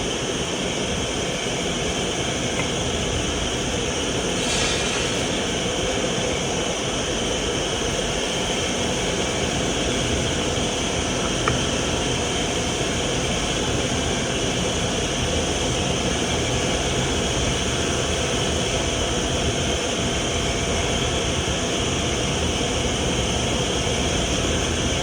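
Repaired vacuum cleaner motor running steadily at speed, a constant rushing noise that doesn't change in pitch or level.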